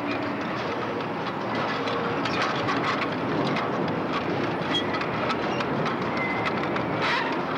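Car assembly-line factory noise: a steady clattering din of conveyor and machinery, with scattered clanks and a few brief steady tones.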